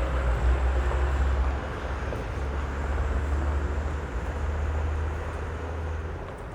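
Street traffic: motor vehicles passing with a deep, steady engine rumble and tyre noise. It is loudest in the first second and a half, swells again a few seconds in, and eases near the end.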